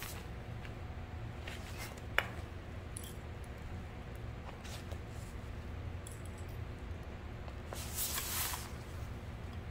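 Fabric being handled and shifted, with one sharp click about two seconds in and a longer rustle near the end, over a steady low hum.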